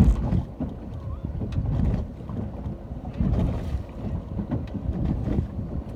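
Wind buffeting the microphone in uneven gusts over the wash of ocean waves, with scattered small clicks.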